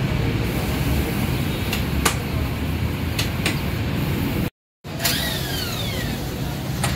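Brake-disc lathe running with a steady mechanical hum and a few sharp clicks as a car's brake rotor is turned on it for resurfacing. The sound cuts out for a moment about two-thirds through, and short squeals falling in pitch follow.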